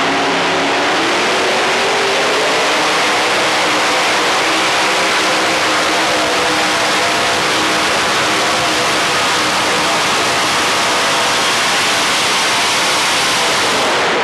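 Engine of a 5,800 lb modified pulling tractor at full throttle during a pull, climbing in pitch over the first few seconds, then held at high revs. The sound ends suddenly near the end.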